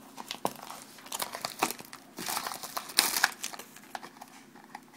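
Trading card pack wrapper crinkling as the cards are pulled out and handled, in short irregular rustles, loudest about three seconds in.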